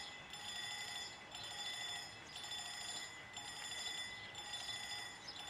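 Level-crossing warning bell ringing, a high electronic tone repeating evenly about once a second.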